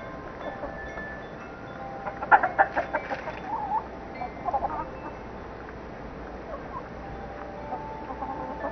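Domestic hens clucking: a quick, loud run of clucks a little over two seconds in, then softer calls. Wind chime tones ring behind them.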